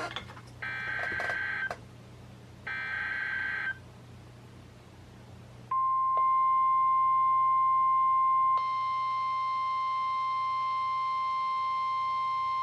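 NOAA Weather Radio alert through weather-radio speakers: the last two of three roughly one-second warbling SAME header data bursts, then a steady 1050 Hz warning alarm tone that comes on a couple of seconds later and keeps sounding. Together they signal a new warning being issued, here a special marine warning. The tone turns brighter and buzzier about three seconds after it starts.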